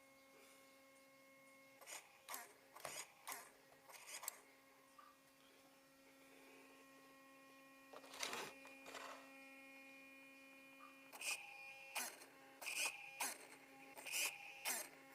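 Small steering servo buzzing in short bursts as the boat's steering is worked back and forth, over a steady electrical hum. The bursts come a few at a time at first, then quicker, about two a second, near the end.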